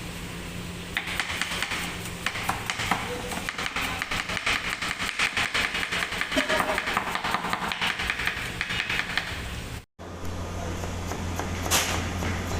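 Rapid, irregular clatter of knocks and taps, like kitchen utensils striking a hard surface, over a steady low hum. It breaks off at a cut about ten seconds in, after which a lower hum carries on with one sharp click near the end.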